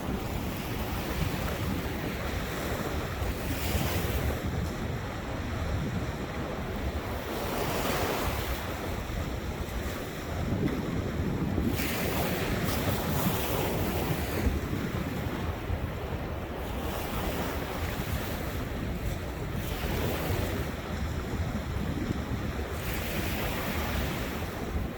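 Ocean waves breaking and washing up on a beach, the hiss swelling every few seconds, with wind rumbling on the microphone.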